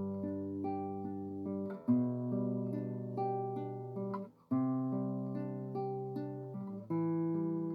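Background music on acoustic guitar: slow, sustained chords that ring and fade, with a new chord struck about every two and a half seconds.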